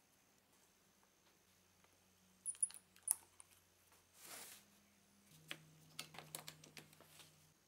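Wooden jig parts and one-handed bar clamps being handled: a few sharp knocks, a short scraping rush about four seconds in, then a run of quick clicks as the clamps are worked and tightened.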